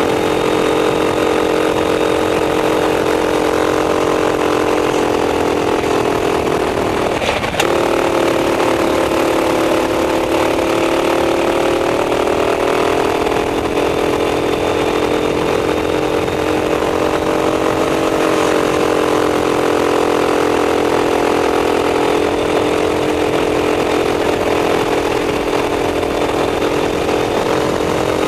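Racing kart engine running hard at high revs, heard from the onboard camera, its pitch dropping as the kart slows for corners and climbing again on the throttle. A single sharp knock comes about seven and a half seconds in.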